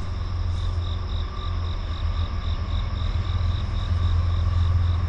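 Low, steady rumble of an approaching diesel freight train, growing slightly louder toward the end, under insects chirping in rapid, even pulses about five times a second.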